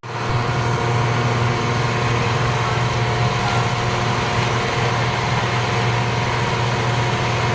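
Heavy truck engine running steadily with a low hum, as for a cement mixer truck. It starts abruptly, like an edited-in sound effect.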